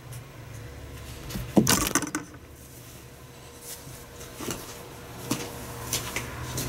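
Handling noise of small hard objects on a granite countertop: one louder knock about a second and a half in, then scattered light clicks, over a steady low hum.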